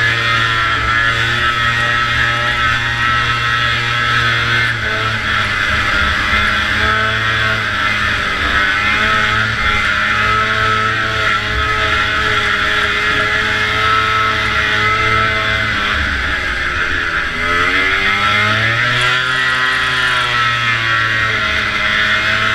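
Two-stroke snowmobile engine running hard at high revs during a race. The pitch drops briefly about 17 seconds in and climbs back as the throttle opens again.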